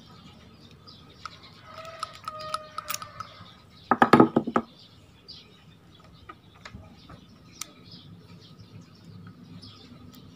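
Small metal clicks and taps from handling a spinning reel's body and loose parts, with a louder clatter about four seconds in. Birds chirp faintly in the background.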